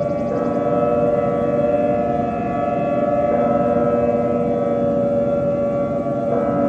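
A siren-like drone: a sustained chord of several steady tones that steps to a new chord about every three seconds, without any rise or fall in pitch between the steps.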